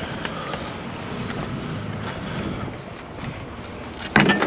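Vehicle running with a steady low rumble and wind noise on the microphone, with light rattles; a loud clunk about four seconds in.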